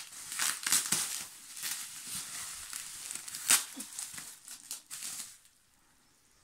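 Plastic bubble wrap crinkling and rustling as it is handled and pulled off a wrapped bundle, in irregular crackles with one sharper crackle about three and a half seconds in. It stops a little after five seconds in.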